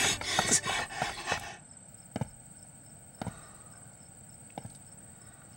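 Music fades out over the first second and a half, leaving crickets chirping steadily in the background. Three single sharp knocks come about a second apart.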